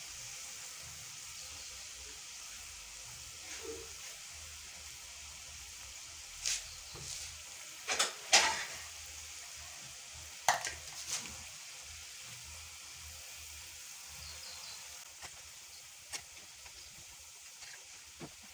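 Maandazi dough balls deep-frying in hot oil in a pan, a steady sizzle, broken by a few sharp knocks of the spoon against the pan, the loudest about eight seconds in.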